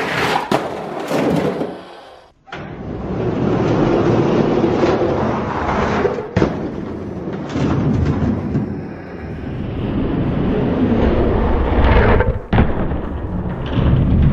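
Hot Wheels die-cast monster trucks rolling down a gravity race track: a continuous rumble of wheels on the track, with a few sharp knocks as the trucks bounce and hit the track. The rumble cuts off abruptly twice.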